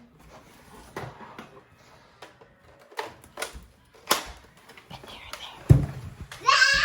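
Scattered sharp clicks and knocks of a Nerf blaster being loaded and handled, with a heavier thump a little before the end. A brief high-pitched cry follows right at the end.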